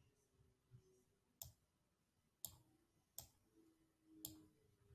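Faint computer mouse clicks, about four sharp ones roughly a second apart, as page elements are clicked, held and dragged.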